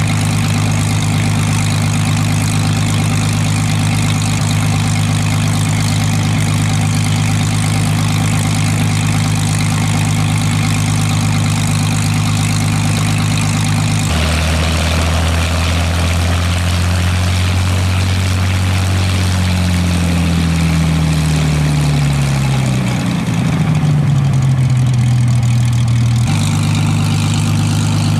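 Hawker Hurricane Mk.I's Rolls-Royce Merlin III V12 engine running at low power on the ground, with the propeller turning, as a steady low drone. About halfway through the note drops, then slides lower for a few seconds, and the earlier steady note returns near the end.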